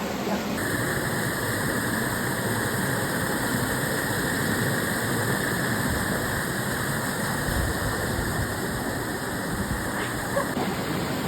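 Steady rush of running water, like a waterfall.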